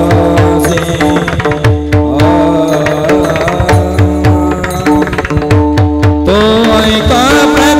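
Marathi Varkari kirtan music: a sung melody over a steady drone, a hand drum and small hand cymbals (taal) keeping a regular beat.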